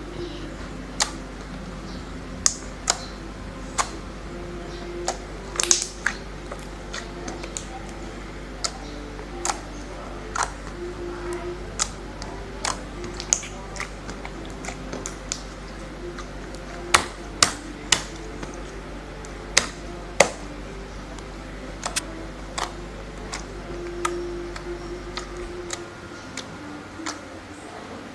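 Slime being played with, giving many sharp, irregular clicks and pops of trapped air, over a steady low hum that stops near the end.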